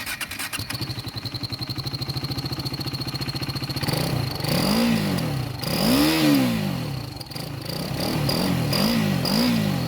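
KTM RC 390's single-cylinder engine idling with a steady high whistle from an aftermarket turbo whistle, then revved in about four quick blips. The whistle grows louder with each rev.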